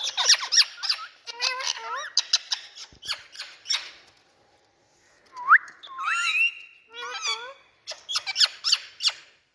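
Indian ringneck parrots chattering and squawking: quick squeaks and sharp rising calls, with a brief pause about halfway through before the calls resume.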